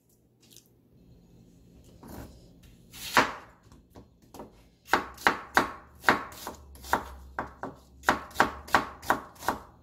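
Chef's knife slicing a red onion on a bamboo cutting board. One cut lands about three seconds in, then a steady run of knife strokes follows at about three a second, each a sharp knock of the blade on the board.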